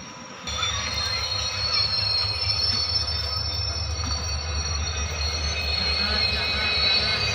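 Passenger train's coach wheels squealing on the rails, several steady high-pitched tones over a low running rumble, as the train rolls slowly into a station. The squeal starts about half a second in.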